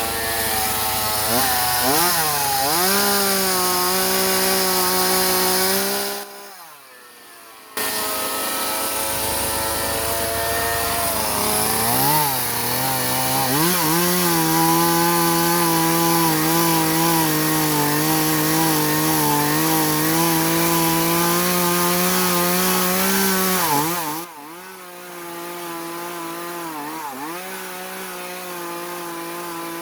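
Chainsaw running under load while cutting wood, its engine pitch dipping and recovering as the chain bites into the cut. It falls away briefly about six seconds in and runs at a lower level from about 24 seconds on.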